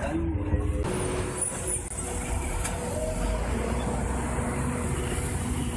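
Road traffic in floodwater: vehicle engines running with a low rumble. About a second in, a steady hiss of moving water joins.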